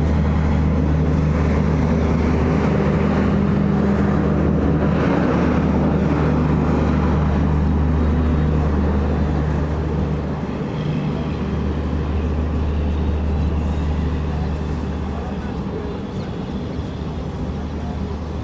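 Passenger train's steady low running rumble, heard from an open coach door as it rolls along the station platform. The rumble eases off about ten seconds in and again near the end, with voices from the platform crowd over it.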